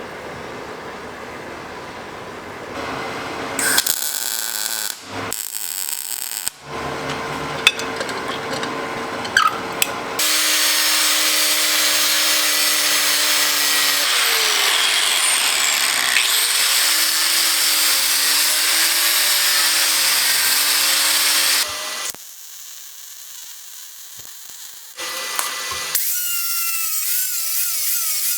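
Power tools working metal, heard in several short cuts. The longest and loudest is a stretch of harsh grinding noise with a motor whine that wavers in pitch.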